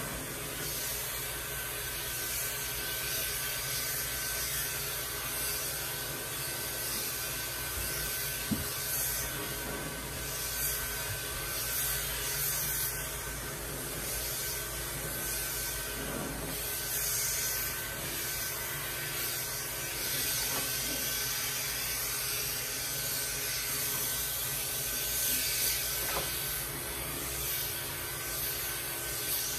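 Andis two-speed pet clipper with a clipper-vacuum hose attached, running steadily as it trims a long-haired cat's coat through a comb attachment while the hose sucks up the clipped fur: a constant rushing hum with a steady whine. One brief sharp click a little past eight seconds.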